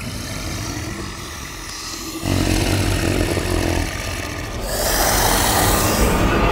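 Horror-style cinematic sound design: a dense, rumbling, hissing drone that swells louder in steps, about two seconds in and again near five seconds, building tension.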